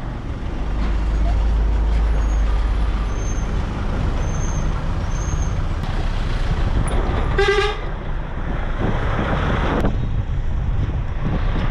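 A vehicle driving, with steady road and wind rumble. About seven seconds in, a vehicle horn gives one short toot.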